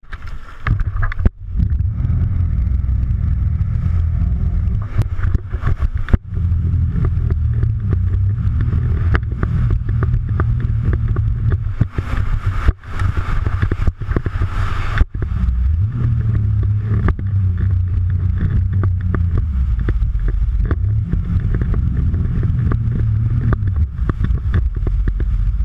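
Jet ski engine running at speed, a steady low rumble with wind and splashing water; a louder hiss of spray for a few seconds around the middle.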